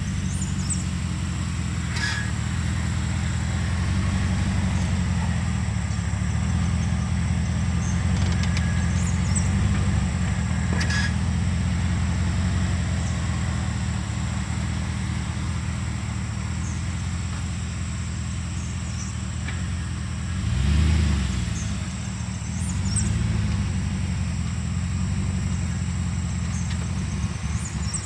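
Chevrolet Silverado pickup's engine running at low speed as the truck drives slowly in and parks, its pitch rising and falling twice about twenty seconds in.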